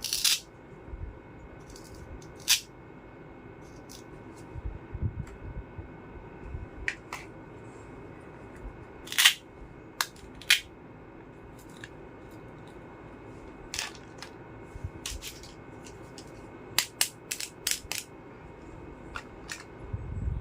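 Small hard plastic toy pieces clicking and tapping as a miniature toy kitchen set is handled, in scattered single clicks with a quick run of them near the end, over a faint steady room hum.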